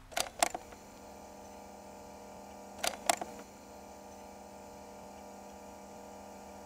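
A steady electrical hum, with two pairs of quick glitchy clicks: one pair right at the start and another about three seconds in. These are sound effects for animated end titles.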